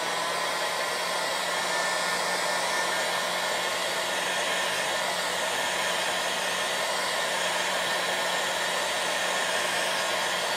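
Craft heat tool blowing steadily with a low motor hum, drying a top coat of paint over crackle medium to speed up the cracking.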